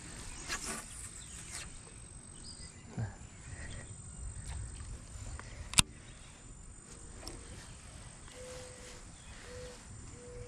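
Insects chirring steadily in a high, thin, unbroken tone, with one sharp click a little past halfway through.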